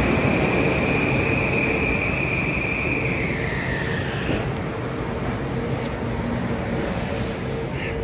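Metro-North M8 electric multiple-unit train slowing along the platform: a high electric motor whine over the steady rumble of the wheels drops in pitch about three to four seconds in and fades as the train brakes.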